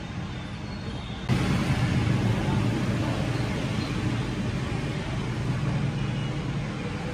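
Steady background road-traffic noise that suddenly gets louder about a second in and then holds steady.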